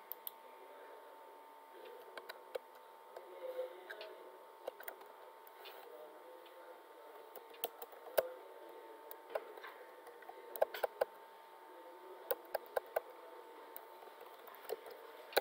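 Computer keyboard keystrokes: scattered sharp clicks, some in quick clusters, over a faint steady tone.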